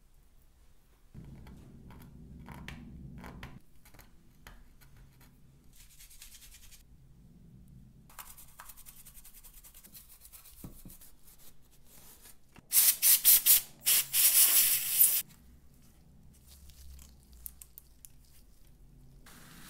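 Computer parts being handled and rubbed during a deep clean, with scattered light clicks and scrapes. About two-thirds of the way in come a couple of seconds of loud, hissing, rasping bursts, like scrubbing or brushing.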